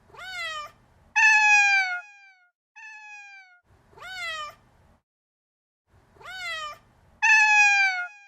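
Cat meowing: short meows that rise and then fall in pitch alternate with longer, louder meows that slide downward. The same meows repeat in an identical pattern several times.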